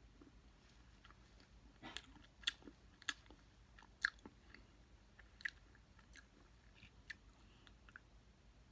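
Faint close-up chewing of a mouthful of ice cream with a hard chocolate chip: several soft crunches and wet clicks at uneven intervals, as the chip is crunched between the teeth.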